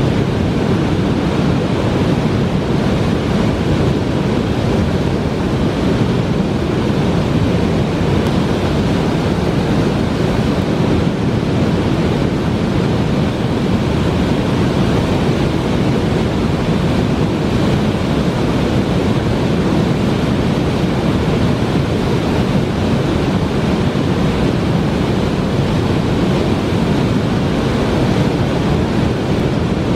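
Waterfall and whitewater rapids rushing close by: a loud, steady noise that does not change.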